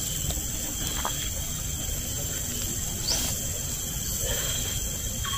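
Steady high-pitched drone of forest insects, several constant tones held together, with a few short whistled bird calls over it.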